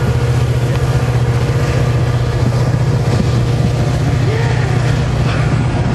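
Metra commuter train's diesel locomotive running with a steady, loud low rumble, with faint higher squeals over it.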